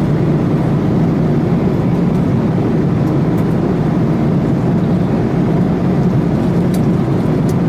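Steady cabin noise of an Airbus A330 at cruise: an even, low rush of engine and airflow. A couple of faint clicks come near the end.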